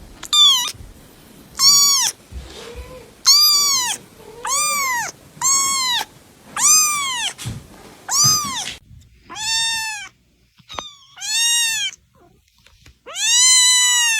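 Cat meowing again and again, about ten high-pitched meows each rising then falling in pitch, with short pauses between them.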